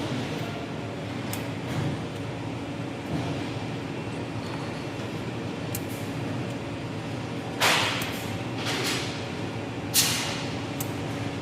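Steady workshop machine hum with two sudden short hissing bursts in the second half that fade quickly.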